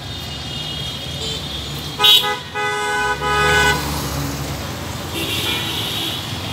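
Busy road traffic with a steady engine rumble and vehicle horns honking. The loudest horns come about two seconds in and sound for nearly two seconds, with fainter honks a few seconds later.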